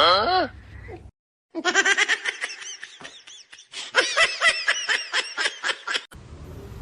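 A person laughing hard in a rapid string of short, pitched bursts.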